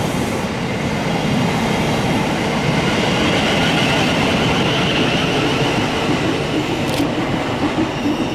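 South Western Railway electric multiple unit running past close by, a steady rumble and rush of wheels on rail. There is a sharp click about seven seconds in, and a rhythmic clatter over the rail joints near the end.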